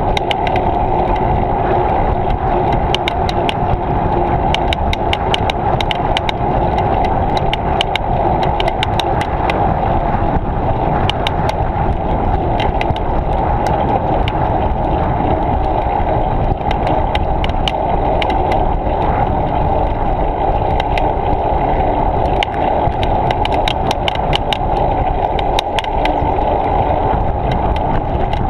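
Steady riding noise of a bicycle on the move, picked up by a GoPro camera mounted on the rig: wind and tyre rumble, with many small clicks and rattles running through it.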